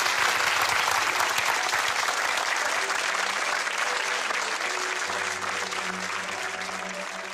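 Large audience applauding, a dense steady clapping that slowly fades toward the end.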